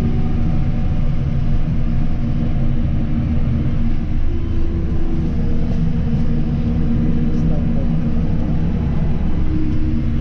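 Case IH tractor's diesel engine running steadily as the tractor drives along, heard from inside the cab as a constant low drone.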